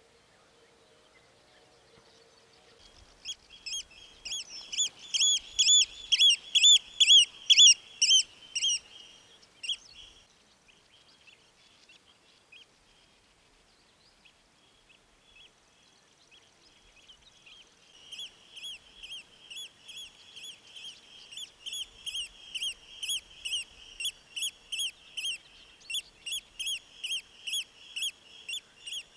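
A bird calling at night: a series of short, sharp, high notes at about two a second, loud for several seconds. It stops, then starts again softer about 18 seconds in.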